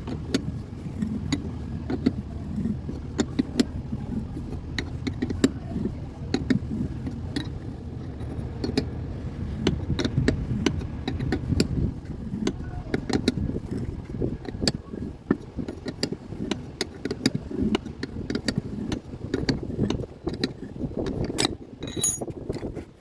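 Metal tools and parts being handled: irregular sharp clicks, knocks and clinks, several a second, over a steady low rumble.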